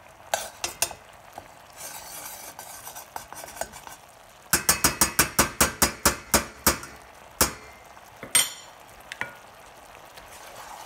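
Metal utensil clinking against a skillet: a few clicks, then a quick even run of sharp clinks, about five a second, and two more single clinks, as flour is knocked into a simmering sauce. A faint sizzle of the simmering sauce runs underneath.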